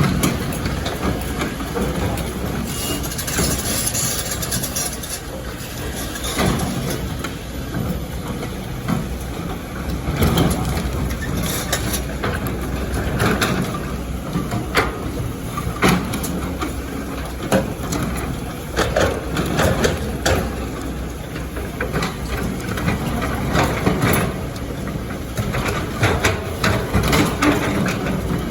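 Excavator engine running steadily, with irregular knocks and crunches of rock and sand as the bucket digs.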